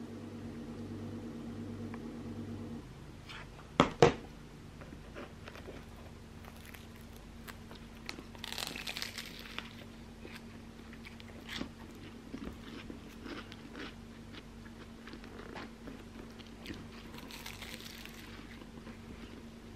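Eating a ham-filled croissant sandwich: crisp, crackly crunches of flaky pastry being bitten and chewed, in a couple of clusters. Two sharp loud clicks come about four seconds in, over a low steady hum.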